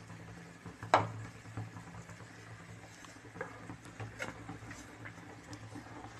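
Spices being tipped from a plate into a metal kadhai and brushed off by hand. There is one sharp clink about a second in as the plate knocks the pan, then a few light taps and scrapes over a low steady hum.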